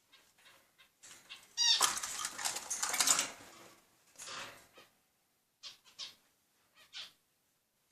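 Pet birds calling: a loud, harsh squawk lasting a second and a half about 2 s in, with a rapid run of chirps at its start, then a shorter call and a few brief high chirps near the end.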